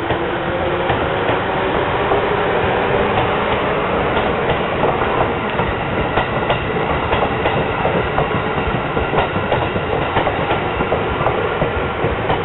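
Seibu Railway yellow electric train running past, with repeated clacks of its wheels over rail joints and a motor whine that rises in pitch over the first few seconds as it gathers speed.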